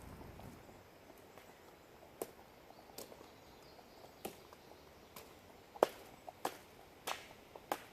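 A string of sharp, irregular taps and clicks, about one every half second to a second. The loudest comes about two-thirds of the way through.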